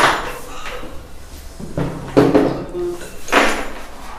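Knocks and clatter of a steel hydraulic bed-lift fitting being handled and set against the wooden box of a bed: three sharper knocks, at the start, about two seconds in and about three and a half seconds in.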